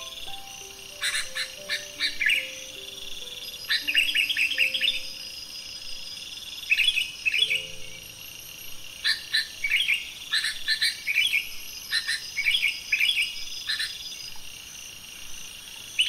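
Yellow-vented bulbul singing: short bubbly phrases of quick notes, repeated every second or two, over a steady high-pitched buzz.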